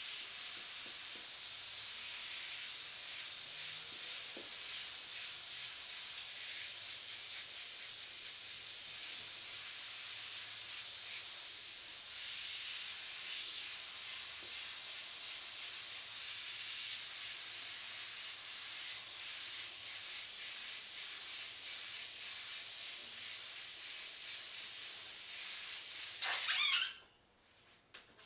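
Airbrush spraying paint onto a T-shirt: a steady hiss of air and paint. Near the end there is a short, louder burst, then the sound cuts off suddenly.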